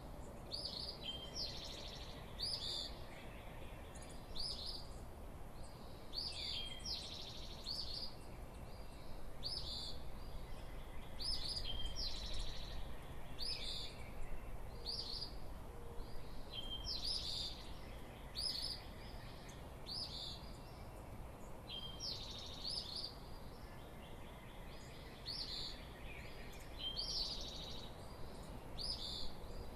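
Songbirds in the dawn chorus: short, high, down-slurred call notes repeated about once a second, over a faint low rumble of light breeze.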